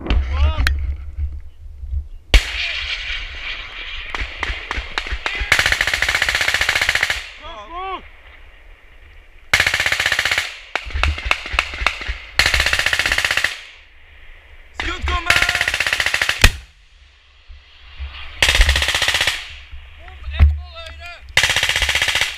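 Bursts of automatic gunfire, about six bursts of a second or so each, spaced a few seconds apart, with short shouts in between.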